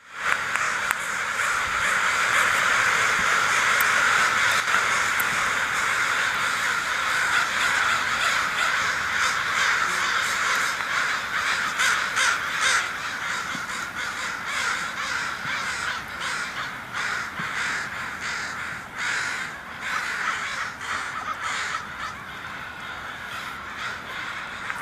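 A group of crows cawing continuously, many calls overlapping at once; the din eases a little in the second half.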